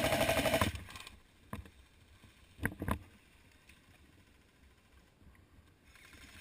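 Airsoft gun firing a rapid full-auto burst that stops about half a second in. It is followed by three short sharp cracks, one about a second and a half in and two close together near three seconds.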